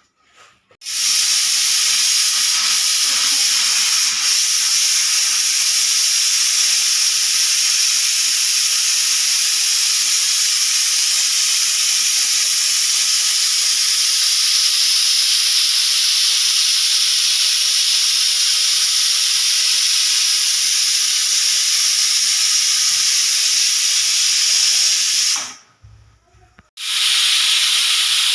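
Pressure cooker whistle blowing: steam jets out past the weight valve in a loud, steady hiss, venting the pressure built up inside the cooker. It starts about a second in, breaks off briefly near the end, then starts again.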